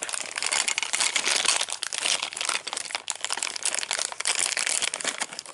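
Packaging crinkling and crackling continuously as it is handled, with many quick crackles close together while a toy is taken out of its wrapping.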